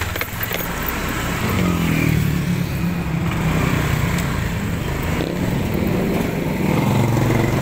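Motorcycle engine running under way, rising in pitch as it speeds up about a second and a half in, then running on steadily.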